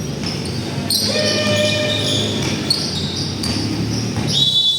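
Indoor basketball game noise: a basketball bouncing on a court, shoe squeaks and spectators' voices, with a long, steady high-pitched tone starting near the end.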